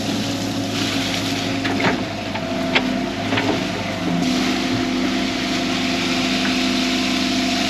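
Excavator's diesel engine running under load while digging, with a few sharp knocks about two and three seconds in. The engine note steps up a little about four seconds in.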